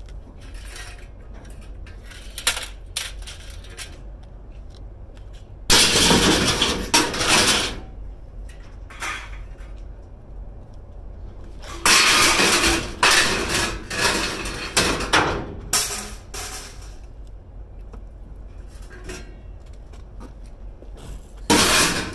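Scrap metal clanging and clattering as pieces are thrown and handled, in separate bursts: one about six seconds in, a longer run of crashes a few seconds later, and another near the end.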